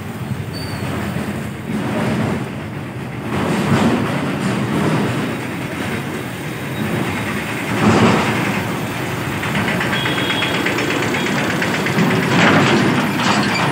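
Vehicle engine noise in a busy street market: a steady mechanical rumble with louder swells about four, eight and twelve seconds in.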